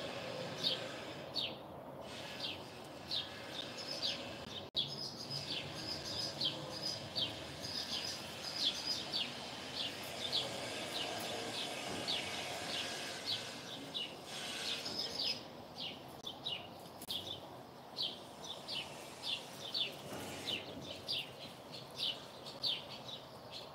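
Small birds chirping rapidly and repeatedly, about two or three short high chirps a second, pausing briefly about halfway through, over faint outdoor background noise.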